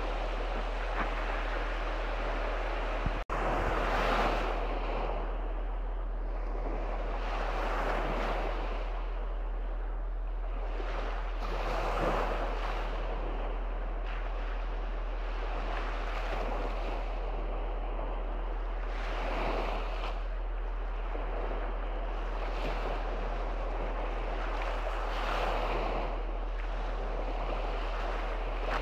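Small sea waves breaking and washing up a sandy shore, swelling and fading every few seconds, over a steady rush of wind on the microphone. A short click and dropout about three seconds in.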